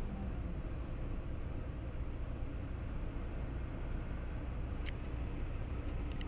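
Steady road and engine drone heard inside a vehicle's cabin while driving at motorway speed. A single brief tick sounds about five seconds in.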